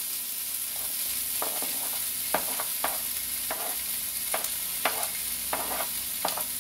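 Diced boiled potatoes with onion and carrot sizzling in oil in a nonstick frying pan, with a steady high hiss. A wooden spatula knocks and scrapes against the pan over and over as they are stirred.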